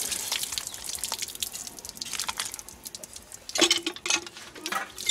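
Water splashing and dripping as raw duck meat pieces are rinsed by hand in a perforated steel colander, the water running through the holes. Irregular small splashes, with a louder flurry of splashing about three and a half seconds in.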